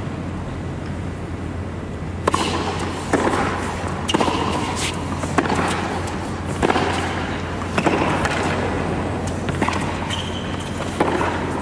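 Tennis rally on a hard court: a ball struck back and forth by two rackets, with about eight sharp hits a little over a second apart, over a steady arena hum.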